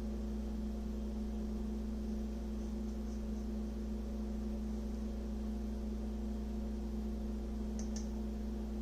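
Steady electrical hum, a constant low drone with a couple of fixed tones above it, unchanging throughout, with one faint click about eight seconds in.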